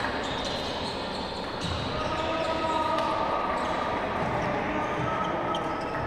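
Reverberant hubbub of a large indoor sports hall: a steady background of distant, indistinct voices from the crowd and players.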